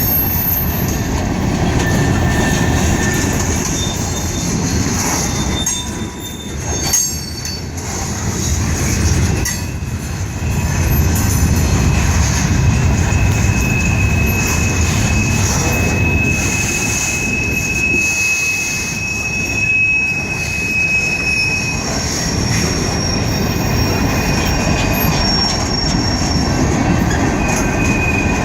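Freight train cars rolling past, a steady rumble of wheels on rail with high-pitched wheel squeal that comes and goes, strongest in the middle.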